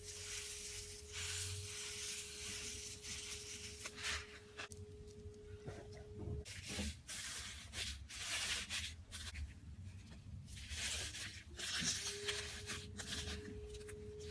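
Slime being handled: faint, irregular rubbing and crackling noises that come and go.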